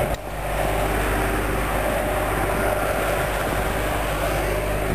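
A motor vehicle's engine running steadily: a low, even hum under a broad rushing noise.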